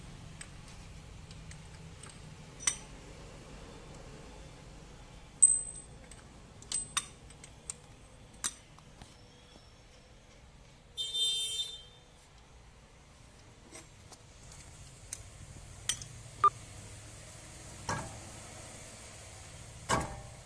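Scattered sharp metallic clinks and taps as steel tools and wheel-hub parts of a car's front brake disc assembly are handled, with a short ringing metallic rattle about halfway through.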